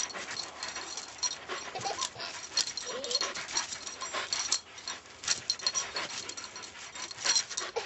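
A small dog whining briefly a few times and panting, eager for a ball held just out of reach, with scattered sharp clicks and scuffs throughout.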